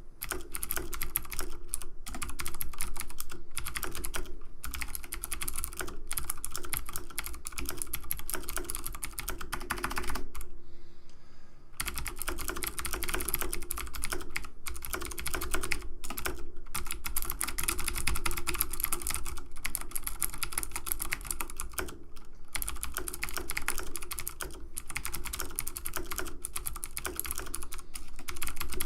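Dense, rapid clicking much like fast typing on keys, with a pause of about a second roughly ten seconds in.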